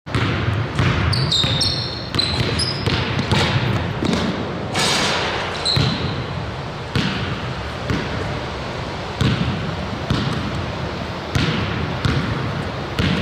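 Basketball being dribbled on a hardwood gym floor: repeated, irregular bounces with sneakers squeaking a few times during the first few seconds.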